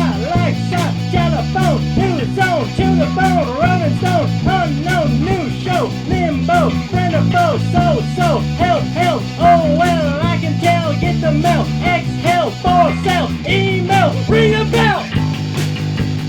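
A rock band playing a fast, driving song. Chords change every second or so under a high lead line of quickly bending, wavering notes, with regular drum hits.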